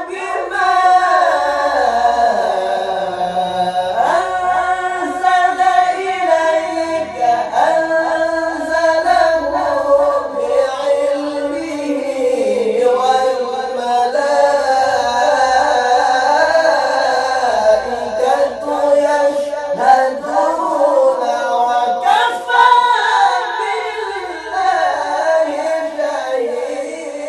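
Two men's voices reciting together unaccompanied in the melismatic qari style of Quranic recitation, with long held notes ornamented by quick turns.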